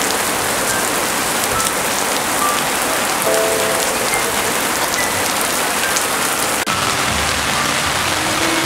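A heavy downpour of rain pelting wet asphalt: a steady, dense hiss of rain with scattered individual drop impacts. About two-thirds of the way in the sound changes abruptly to rain on tent fabric, with some low dull thuds.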